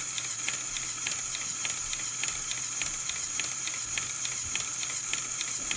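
Lego Power Functions medium motor driving the windshield-wiper mechanism: a steady high whir with regular clicking from the gearing, a few clicks a second.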